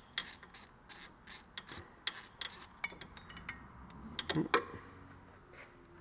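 Ratchet wrench clicking as the small E5 external-Torx bolt holding the ABS wheel-speed sensor is turned out. The ticks come several a second in the first half and thin out, with one louder clink about four and a half seconds in.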